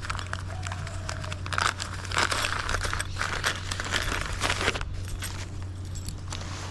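Tent fabric rustling and crinkling as it is handled, in irregular bursts with crackles and scrapes.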